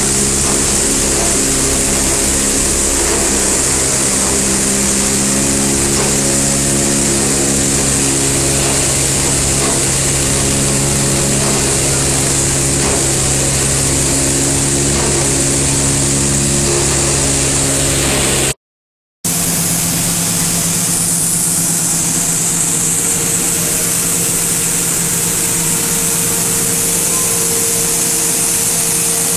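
Plastic film washing and crushing line running: a steady machinery din of several motor hums under a high hiss. It breaks off into silence for about half a second some 18 seconds in, then comes back as a different mix of hums.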